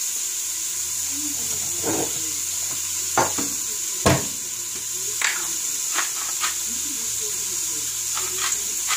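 Diced carrots, celery and onion sizzling steadily in olive oil in a stainless steel stockpot. A few knocks and taps sound over it, the loudest about four seconds in as a cupboard door is pushed shut.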